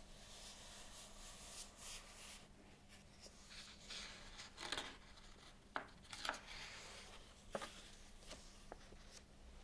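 Soft paper rustling as a page of a hardcover book is slowly lifted and turned by hand, with a few light clicks and taps from fingers on the paper.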